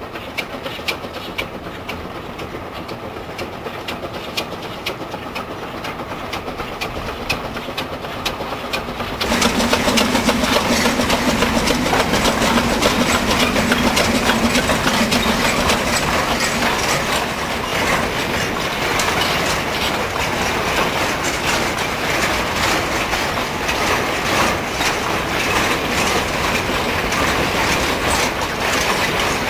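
Narrow-gauge steam locomotive and its train of clay wagons running along the track, with wheels clicking over the rail joints and the wagons rattling. It is distant and quieter at first. About nine seconds in it becomes suddenly much louder and closer, with a low steady hum for several seconds.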